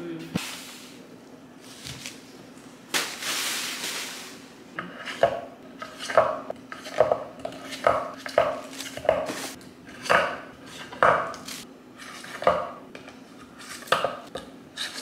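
Kitchen knives being set one by one into a wooden knife block, each one knocking and clinking into place, roughly once a second. Near the start, a rustle of packaging lasting about a second and a half.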